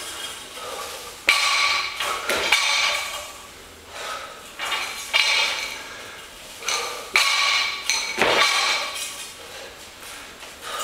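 A loaded barbell with bumper plates clanking during repeated cleans: several sharp metallic clanks with a ringing after each, about every one to two seconds, as the bar and plates knock and rattle through each rep.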